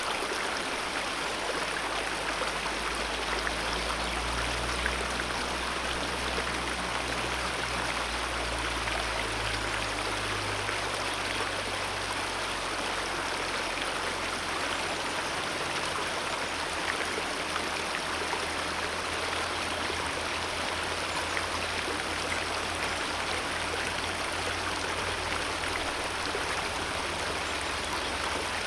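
Wild alpine mountain river running, a steady, dense rush of water.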